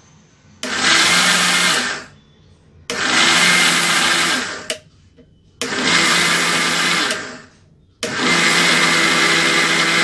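Small electric food chopper grinding dry sugar and powders, run in pulses: four bursts of motor noise, each starting abruptly and winding down when switched off, with short pauses between.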